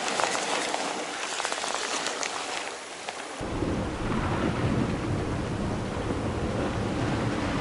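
Sea water washing over rocks, a fizzing hiss with fine crackles. About three and a half seconds in it switches abruptly to a low rumble of wind on the microphone over the surf.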